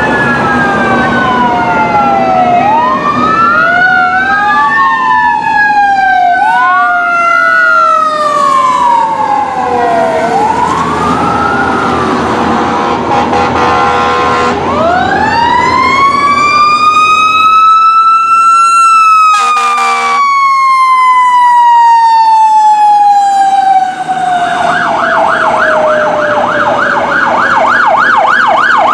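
Fire apparatus sirens: several wailing sirens overlap for about fifteen seconds, then one siren winds up slowly and coasts down in pitch, with a short horn blast at its peak. Near the end a fast electronic yelp siren takes over from the passing command SUV.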